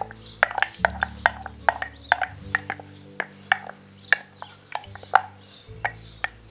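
Soft background music: held low chords that change every second or two, under quick clicking percussion of about four taps a second. Birds chirp faintly in the background.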